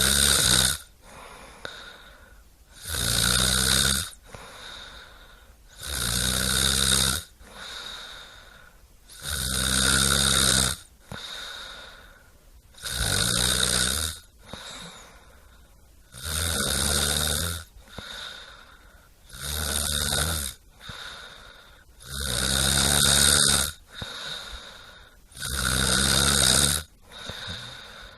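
Regular snoring. A loud snore comes about every three seconds, nine in all, with a quieter breath between each one.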